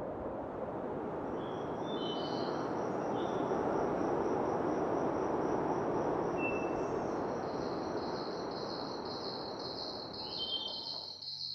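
Summer outdoor ambience: a steady hiss with a few short, high bird chirps, then from about two-thirds of the way in, crickets chirping in an even pulse of about two a second. The hiss cuts off just before the end.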